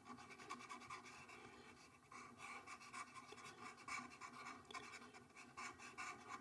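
Faint, irregular scratching and tapping of a stylus on a tablet as someone writes.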